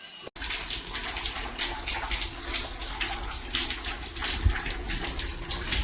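Water gushing from a slip-on shower hose attachment, starting suddenly about a third of a second in and running on with an uneven splashing rush.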